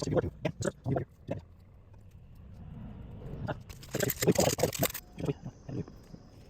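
Handling sounds from gluing a small knife handle: a quick run of small clicks and knocks, a rustle of about a second near the middle, then a few more clicks.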